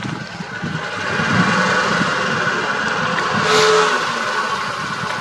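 Open-top safari jeep's engine running as it drives slowly over bare rock, getting louder about a second in as it pulls closer, with a brief squeak about three and a half seconds in.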